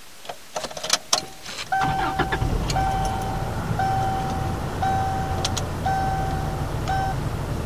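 A few clicks, then about two seconds in a car engine starts and runs steadily while the dashboard warning chime beeps about once a second, six times, stopping near the end.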